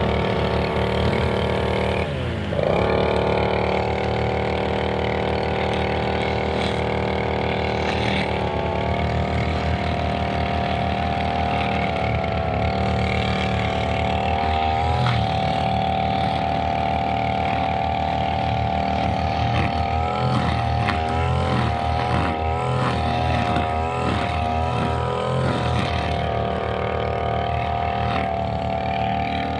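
Brushcutter engine running at high revs while cutting grass. Its pitch drops briefly and climbs back about two seconds in, and wavers up and down under load in the second half.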